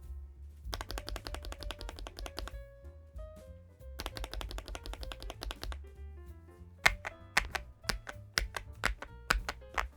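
MCHOSE UT98 mechanical keyboard being typed on in two quick runs of key clacks, with sharper single clicks evenly spaced in the last few seconds, over background music with a steady bass.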